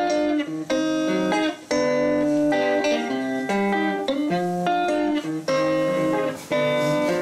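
Electric guitar played through a small amplifier, chords picked in a repeating pattern with a short break about every two seconds.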